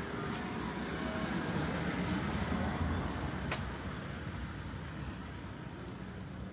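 A road vehicle passing by: traffic noise swells to a peak about two to three seconds in, then fades away. A single short click comes just after the peak.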